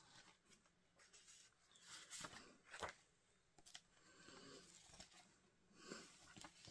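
Faint handling noise from a plastic disc case and its paper sleeve: a few sharp clicks with soft rustling in between, as the reversible cover sleeve is taken out to be swapped over.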